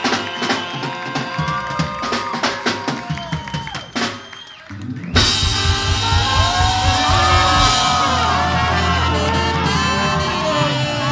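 Live ska band with horns and a drum kit playing. The music thins out and drops in level about four seconds in, then the full band comes back in loud about five seconds in.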